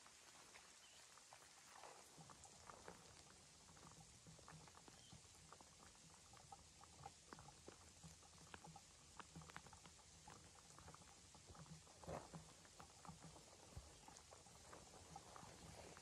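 Faint, irregular patter of light rain, scattered small taps with a slightly louder cluster about twelve seconds in.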